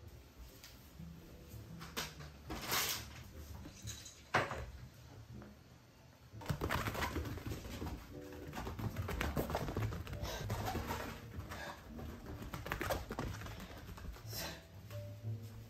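A puppy and a kitten play-fighting on a foam floor mat: soft scuffles and a few sharper thumps, then from about six seconds in a busier patter and scrabble of paws as they chase each other across the mat.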